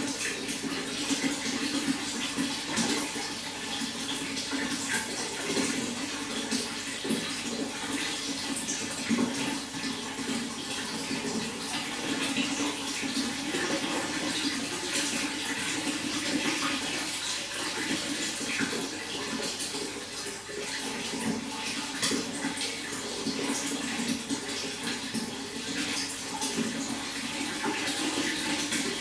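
Running water, a steady continuous splashing and trickling rush.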